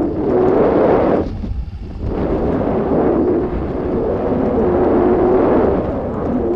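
Wind buffeting the microphone of a camera hanging under a high-altitude weather balloon: a loud, rough rumble that eases briefly about a second and a half in, then picks up again.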